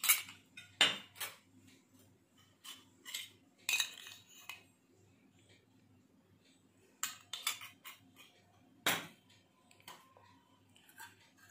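Metal spoon clinking against dishes while food colouring is scooped and spooned into a hollowed-out lemon: about a dozen sharp clicks in irregular clusters, with quiet gaps between them.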